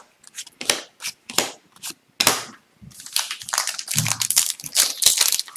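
Hockey card packs and cards being handled: scattered sharp clicks, then from about three seconds in a denser run of crinkling and rustling.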